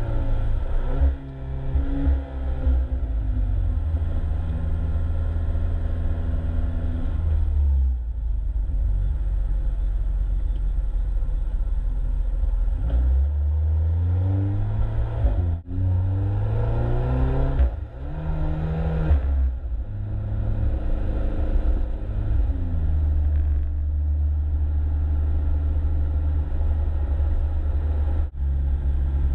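Alfa Romeo 4C Spider's 1750 turbocharged four-cylinder engine heard from inside the cabin: steady cruising, with runs of acceleration in the middle and near the end where the engine note rises and breaks off briefly at gear changes.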